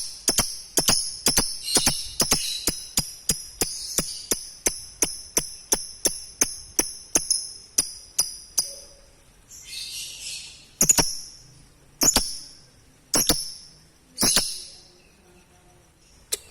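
Lovebird ngekek: a long run of sharp, high chirps, about three a second, that breaks off about nine seconds in. After a short harsh call come four single chirps about a second apart.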